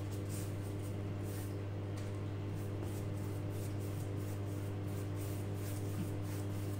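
Paintbrush scrubbing acrylic paint onto a canvas in loose, irregular strokes: soft, scratchy swishes over a steady low hum.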